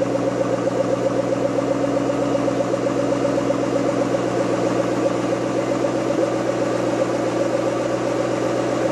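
2010 Ford Mustang GT's 4.6-litre V8 idling steadily through its stock mufflers and dual exhaust tips, heard from behind the tailpipes.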